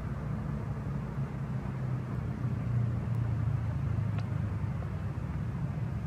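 Heavy diesel engines of a truck and a bus, with smaller vehicles, running in slow-moving traffic: a steady low rumble.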